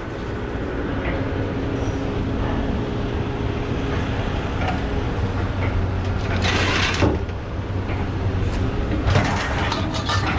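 Scrap metal dragged and clanking as a tangled load is pulled out of a truck bed, in two loud scraping bursts about six and a half seconds in and again near the end. An engine runs steadily underneath.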